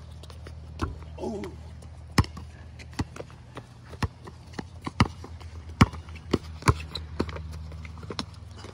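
Basketball bouncing on a concrete court while dribbled, sharp bounces roughly once a second with smaller knocks between.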